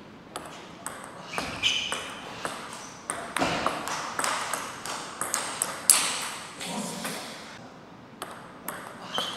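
Table tennis rally: the ball clicking off the rubber-faced bats and bouncing on the table in a quick, irregular string of hits.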